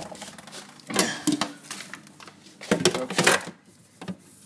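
Food packets and containers being handled and moved in a fridge: a few short knocks and clatters, around a second in and again about three seconds in, with some rustling.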